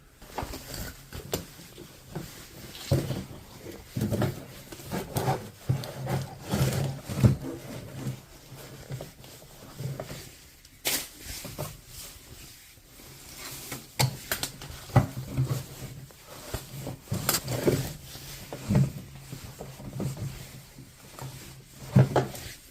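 Irregular clicks, knocks and rubbing scrapes of electric scooter hub-motor parts being handled and worked at by hand, with a faint steady low hum underneath.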